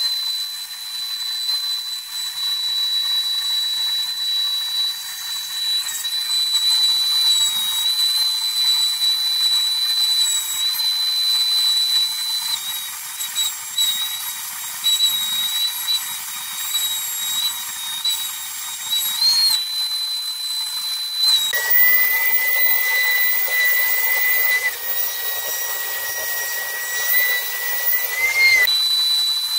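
Trim router serving as the spindle of a CNC router, running with a steady high-pitched whine over a hiss. For about seven seconds near the end a second, lower whine joins in, then stops.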